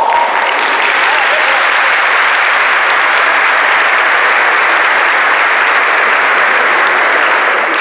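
An audience applauding, breaking out suddenly and continuing steadily, easing slightly near the end.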